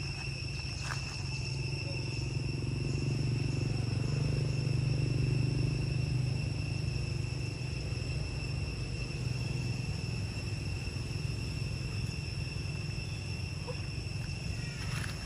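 Steady high-pitched insect drone holding one pitch, over a low rumble that swells a few seconds in and then eases.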